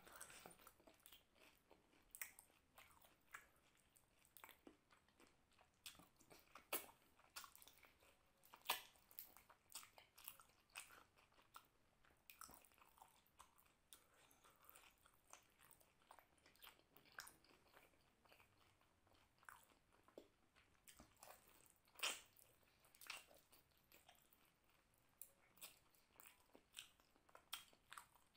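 Quiet, close-miked mouth sounds of a man eating mutton curry and rice: wet chewing and lip smacks with scattered sharp clicks, the loudest a little under 9 seconds and about 22 seconds in.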